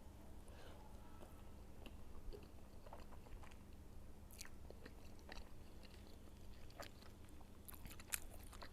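Faint close-up chewing and mouth sounds of someone eating, with scattered small clicks and smacks.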